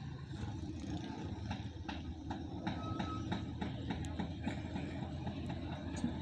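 A run of sharp clicking knocks, about three a second, over a steady low mechanical hum.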